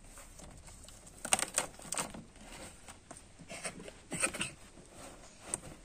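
Irregular clicks, knocks and rustles of a bicycle and its packing being handled inside a cardboard shipping box. There is a cluster about a second in and another about four seconds in.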